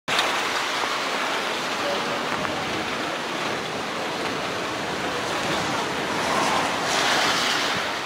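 Strong tropical-storm wind rushing through coconut palm fronds, a steady rushing noise that swells a little near the end.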